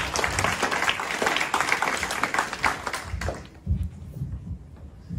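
Audience applauding, the clapping dying away a little over three seconds in.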